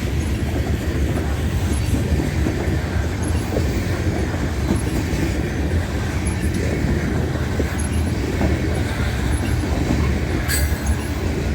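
Loaded coal train's cars rolling past close by: a steady heavy rumble of steel wheels on rail, with faint clicking recurring every second or two and one brief sharp clank about ten and a half seconds in.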